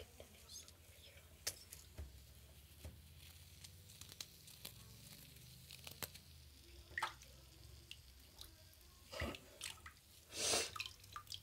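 Wet fingers rubbing and squeezing soft, slippery bath bomb residue, giving faint, scattered wet clicks and squishes, with a brief louder burst near the end.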